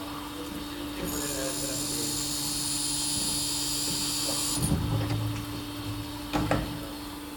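Vollmer CHC saw-sharpening machine grinding the tooth faces of a saw blade: a steady machine hum, with a high grinding hiss from about a second in that stops after about three and a half seconds. Two mechanical clunks follow, about a second and a half apart.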